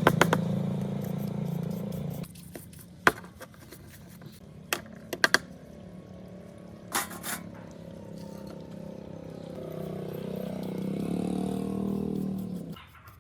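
A motor hums steadily and stops about two seconds in. A few sharp clicks and knocks follow, then a wavering hum comes back and cuts off near the end.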